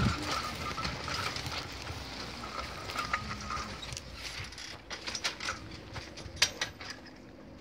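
Aggrozouk tool carrier's metal frame, hoe sweeps and wheels rattling and clicking as it rolls along a spinach row, hoeing the soil. Irregular sharp clicks and ticks, with a faint squeak in the first few seconds and one loud click near the end.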